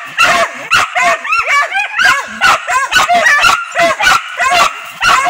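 Hunting dogs barking and yipping in quick, high, overlapping calls, several a second, without a break.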